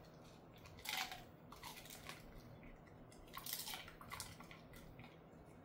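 A dog chewing a hard dried treat: a few irregular, faint crunches as its teeth break into it.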